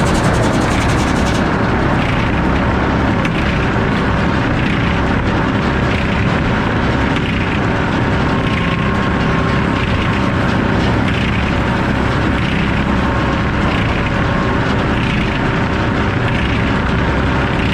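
Circular sawmill blade with F-pattern inserted teeth running steadily and cutting through wood, a loud continuous saw noise. A high hiss drops away about a second and a half in.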